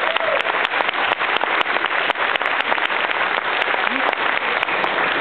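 Audience applauding: many hands clapping densely and evenly.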